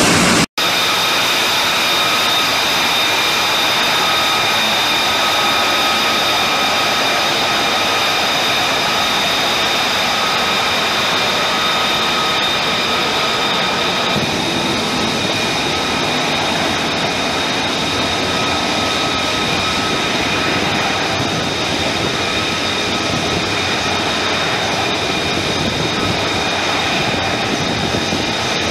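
F-35B Lightning II's Pratt & Whitney F135 jet engine running steadily at a constant power setting, loud, with a steady high whine over the rush of the exhaust. The sound cuts out briefly about half a second in.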